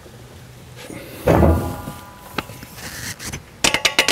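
Aluminium greenhouse glazing-bar extrusions knocking together during assembly: one loud knock about a second in that rings with a clear metallic tone as it fades, then a quick run of sharp metallic clicks near the end.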